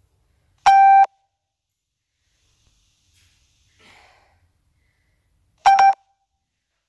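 Electronic interval-timer beeps: one long steady beep about a second in and a shorter beep near the end, marking the switch between rest and exercise.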